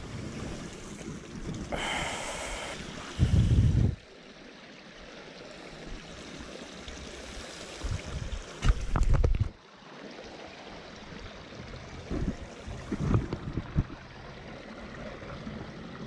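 Creek water running as a steady rush. Three loud low rumbles hit the microphone along the way, and a short hiss sounds about two seconds in.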